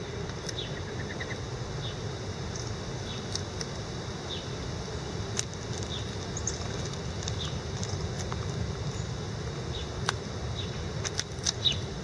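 House sparrows giving short chirps, one every second or so, over a steady low background rumble, with a few sharp clicks, the loudest near the end.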